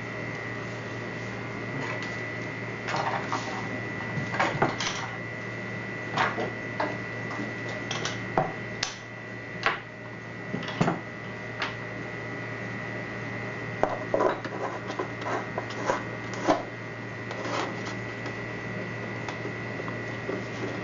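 Irregular light clicks and knocks of small parts being handled and fitted together, over a steady hum with a thin high whine.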